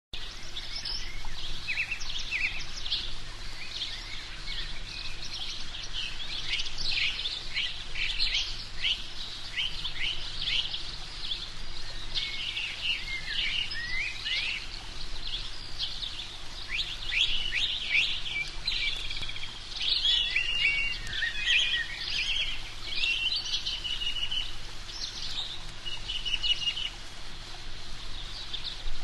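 Many birds chirping and singing over one another, a dense chorus of quick, high calls and short trills with no letup.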